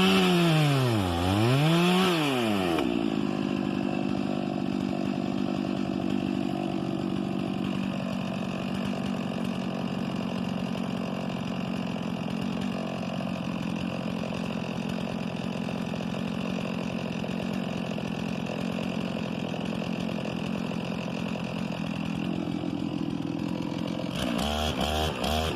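Chainsaw revving up and down a couple of times, then dropping to a steady idle for about twenty seconds, and revving again near the end.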